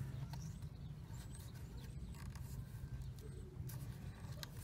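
Faint clicks and scrapes of fingers working a plastic ignition-coil wiring connector loose, over a steady low hum.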